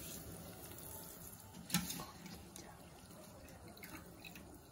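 Soaked sella rice tipped from a metal slotted spoon into a pot of boiling water: soft watery splashing, with one sharp tap a little under two seconds in.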